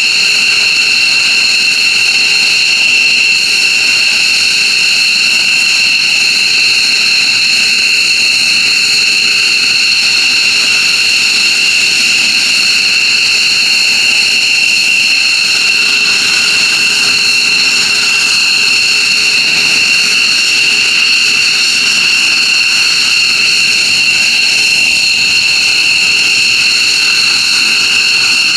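F-15J Eagle fighter's twin turbofan jet engines running steadily on the ground after start, with a loud, high-pitched whine that holds one pitch throughout.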